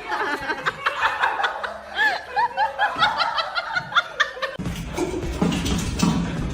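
A person laughing in a run of short bursts. Music comes in about two-thirds of the way through.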